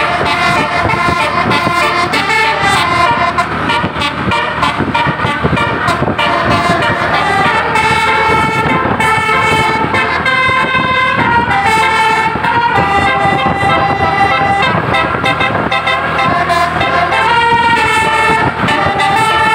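Basuri musical bus horn playing a tune: a run of held horn notes stepping up and down in pitch, over a dense rumbling background.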